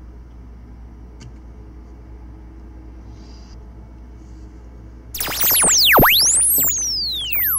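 Low steady background hum, then about five seconds in a loud electronic sound of many rapidly falling and rising whistling tone sweeps, lasting about two and a half seconds and cutting off at the end.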